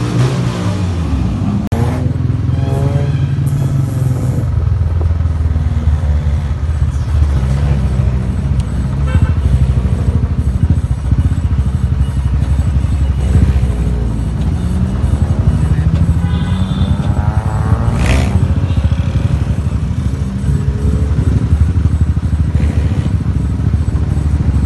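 Motorcycle engine running with a steady low rumble while riding along, mixed with the exhaust of the modified cars ahead. Snatches of music come and go over it.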